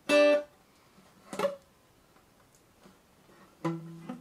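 Acoustic guitar being played: a short sounded chord just after the start, a lighter touch a little over a second in, then a pause, and near the end single notes picked one after another, about two a second.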